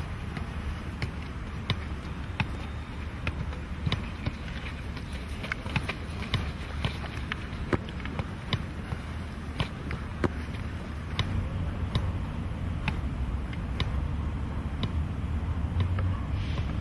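A football being kept up in the air: sharp thuds of the ball against foot and body every second or so, irregularly spaced, over a steady low rumble.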